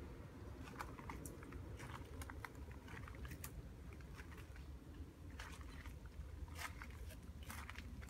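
Faint footsteps crunching slowly and irregularly on gravel, over a low steady hum.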